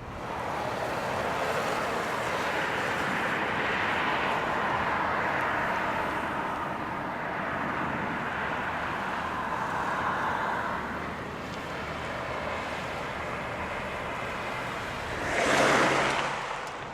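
A car driving on rough ground: a steady rush of tyre and wind noise that swells sharply near the end.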